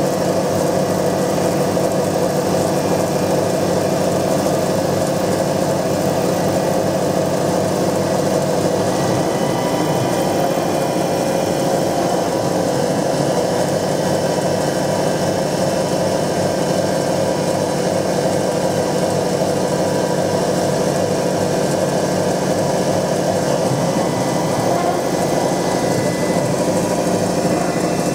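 Denford Novamill CNC milling machine with its spindle running steadily as the end mill cuts a brass name-plate blank.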